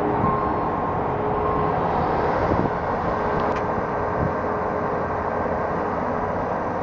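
Heavy construction machinery running steadily, a continuous dense engine noise.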